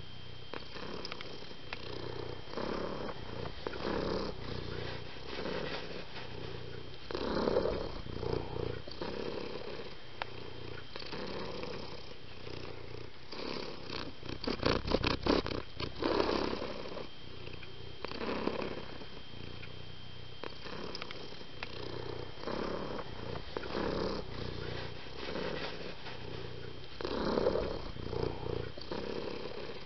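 Domestic cat purring, the rumble swelling and fading with each breath, with a short run of rapid clicks about halfway through.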